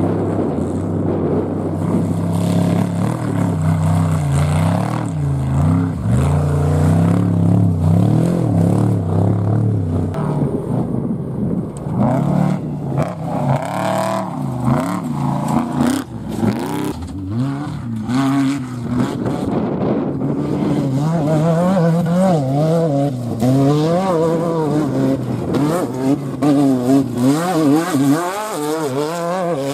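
Off-road race trucks and a race buggy going by one after another at speed on a dirt desert course. Their engines rev up and down over and over as they accelerate and lift over the rough ground.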